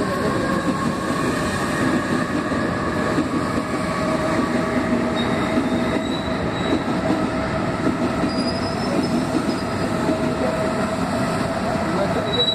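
BHEL-built EMU suburban train approaching, its GTO-inverter traction motors giving a whine of several steady pitches over the rumble of wheels on rail. The lowest pitch creeps slightly upward, with a faint high squeal at times.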